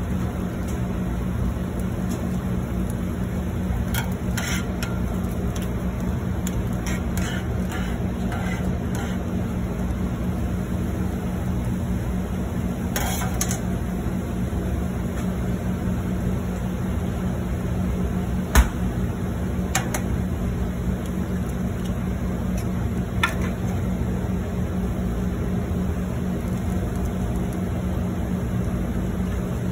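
Steady low mechanical hum of commercial kitchen equipment, with a handful of sharp clicks and light clatters; the loudest is a single knock about two-thirds of the way through.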